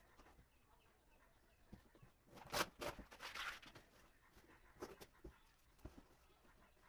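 Cardboard shipping box being handled and picked open: mostly quiet, with a burst of cardboard scraping and rustling a little over two seconds in, then a few light knocks.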